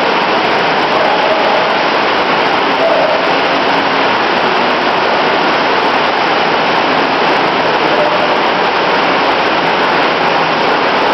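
Loud, steady rushing noise with no distinct events, and faint wavering tones coming and going now and then.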